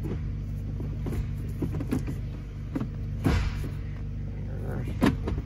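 Fiat 500 Abarth's 1.4-litre turbocharged four-cylinder idling steadily, under a series of short clicks and clunks from the five-speed manual gear lever being moved through its gates. The loudest clunk comes about three seconds in.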